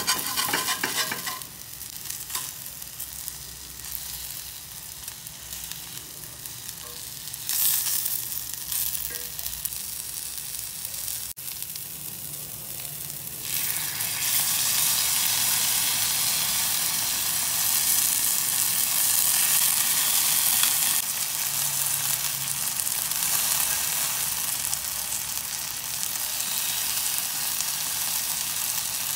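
Eggplant slices frying in a cast-iron skillet, with tongs and a spatula clicking and scraping against the pan at first. About halfway through, sweet soy sauce is spooned into the hot pan and the sizzling turns loud and steady.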